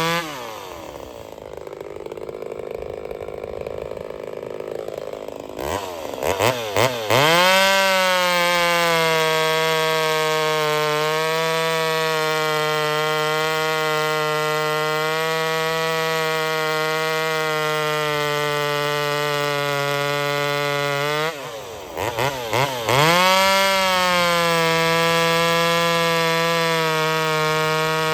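Ported Homelite VI-130 two-stroke chainsaw dropping from full throttle to idle, idling for several seconds, then blipped a few times and held wide open for about fourteen seconds, sagging slightly as it cuts firewood. Near the end it drops briefly to idle, is blipped twice and goes back to full throttle.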